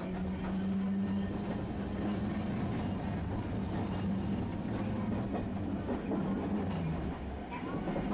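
Tosaden streetcar running on its street track: a steady low motor hum and rumbling wheel noise, with a thin high wheel squeal that dies away about three seconds in.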